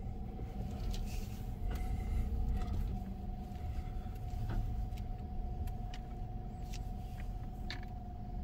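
Steady low rumble with a constant mid-pitched whine from car wash tunnel machinery, heard from inside the car's cabin, with a few faint clicks.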